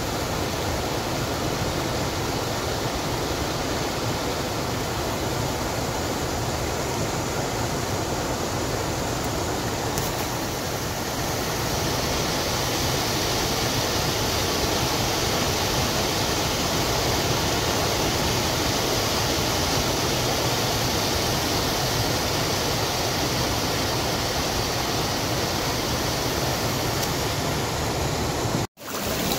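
Water pouring over a small concrete weir and running down a shallow stream: a steady rush that grows a little brighter about a third of the way in, breaking off for an instant near the end.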